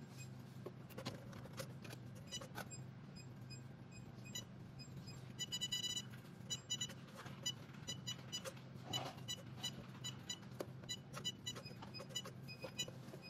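Short high electronic beeps from a touchscreen module's buzzer as its screen is tapped: a quick run of beeps about six seconds in, then single beeps every half second or so, over a steady low hum.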